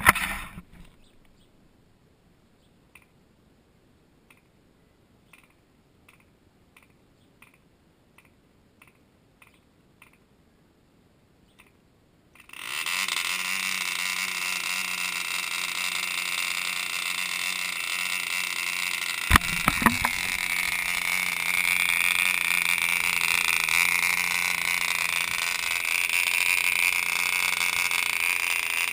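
ED Bee Mk1 Series 2 model diesel engine, made around 1955. After a short burst at the start and a quiet stretch with faint ticks, it fires up about twelve seconds in and runs with a steady high buzz. There are a few sharp clicks a little past halfway.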